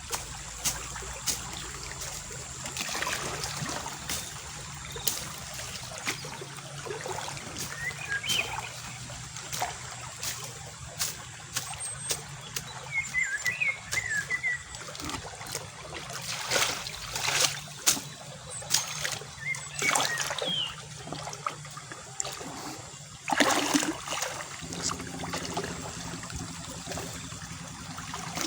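Shallow water trickling and splashing, with short sharp splashes scattered throughout, as someone works by hand in a muddy, nearly dry river hole.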